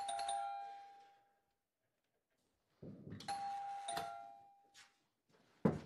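Apartment doorbell ringing twice, about three seconds apart, each ring a steady chime that dies away over a second or so.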